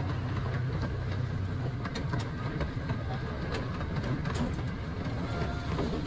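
Miniature zoo train running along its track, heard from aboard: a steady low rumble with irregular clicks and knocks from the wheels and cars.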